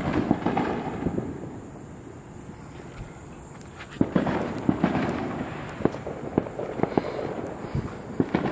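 Fireworks and firecrackers going off: two spells of rapid crackling pops, one at the start and one about four seconds in, with scattered single bangs in between and after.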